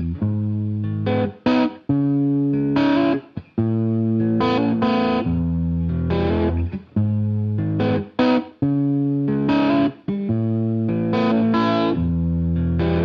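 Background music led by a guitar with a distorted tone, playing chords that are struck and held for a second or two each, with short breaks between them.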